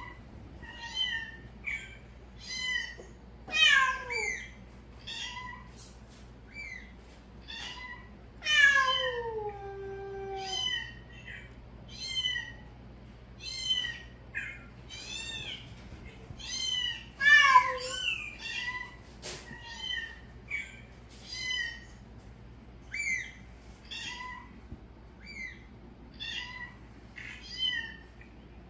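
Cat meowing: a long series of short, high mews about one a second, with a few longer meows that fall in pitch, the longest about nine seconds in, lasting about two seconds.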